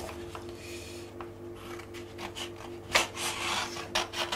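Sheets of photographic paper being handled and slid back into their pack, making a soft rubbing and rustling sound, with a few sharp taps about three seconds in.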